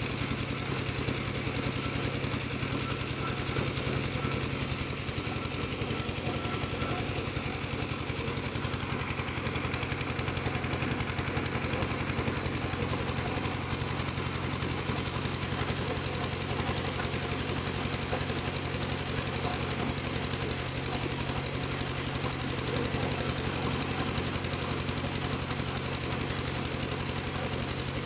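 A piling rig's engine running steadily with a fast, even chugging beat.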